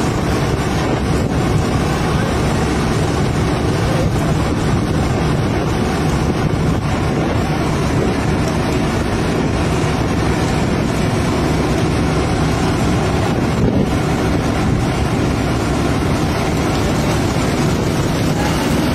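Steady, loud rumble of a fishing trawler's engine and deck machinery, with wind on the microphone.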